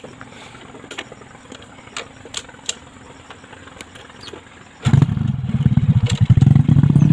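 A few faint clicks, then about five seconds in a motorcycle engine starts suddenly and runs with a rapid, low putter.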